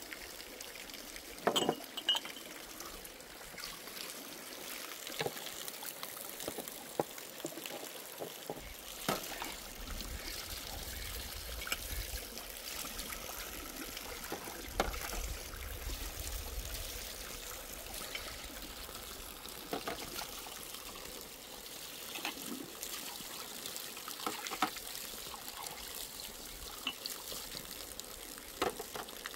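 Water trickling steadily, with scattered light knocks and clinks, a few sharper ones near the start and near the end.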